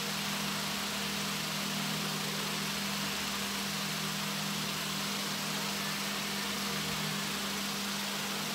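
Steady low hum with an even hiss over it, unchanging and with no distinct knocks or clicks.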